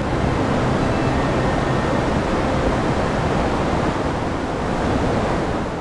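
Steady rushing of a mountain stream or waterfall, an even wash of water noise.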